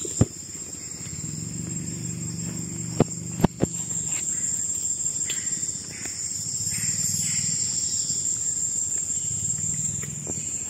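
Steady high-pitched insect chorus, crickets or similar, with a few sharp knocks: one just after the start and three more around three to four seconds in.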